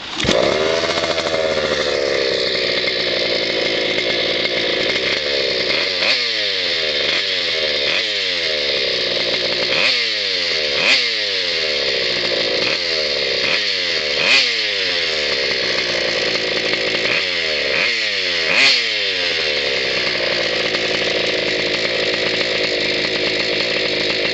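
Goped scooter's small two-stroke engine running through a chrome expansion pipe with a small Briggs & Stratton muffler screwed into its end, fitted to make it quieter. The throttle is blipped about a dozen times in the middle, each rev rising and dropping back, then it settles to a steady idle.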